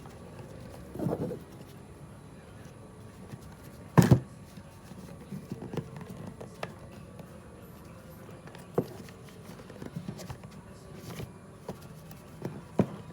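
Handling noises: scattered light taps and clicks, a short rustle about a second in, and a louder double knock about four seconds in.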